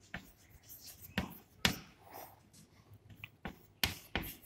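Chalk writing on a blackboard: a string of sharp, irregular taps as the chalk strikes the board, with faint scratching between them.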